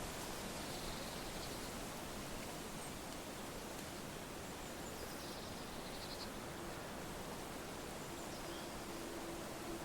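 Steady wind with rustling leaves, with a few faint, short high chirps near the start and about halfway through.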